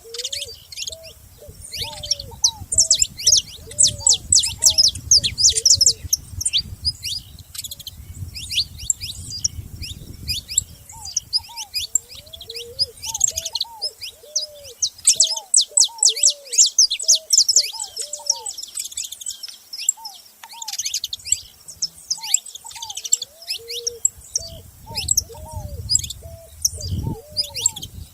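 Several saffron finches chirping and chattering in fast, high, dense bouts that swell and ease off. A lower, evenly repeated call runs underneath through much of it.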